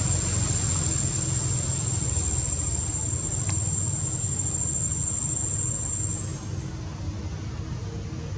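Steady outdoor background noise with a low rumble and a thin, high, steady whine that stops about six seconds in, after which it is a little quieter; a single faint click about three and a half seconds in.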